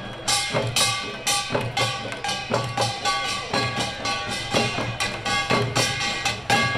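Korean pungmul percussion band playing: janggu hourglass drums and buk barrel drums beaten with sticks together with ringing small brass gongs, in a fast, even rhythm of sharp strikes.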